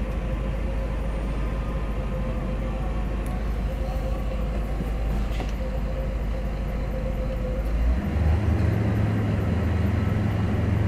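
Mercedes-Benz R107 500SLC AMG's 5.0-litre V8 idling steadily, heard from inside the cabin. About eight seconds in, the engine speed rises a little and its note steps up in pitch and gets slightly louder.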